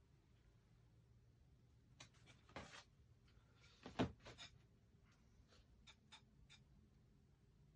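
Faint, scattered taps and short scratches of a pen marking dots on cardboard while a tick stick is repositioned, with one sharper knock about four seconds in.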